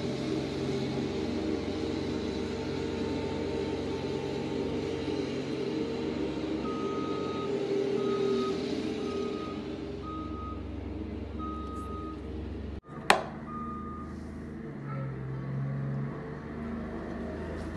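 ASV RT-30 Posi-Track compact track loader's diesel engine running steadily as it grades soil. Partway through, its reverse alarm beeps roughly once a second. Just past the middle there is a brief dropout, followed by a single sharp knock.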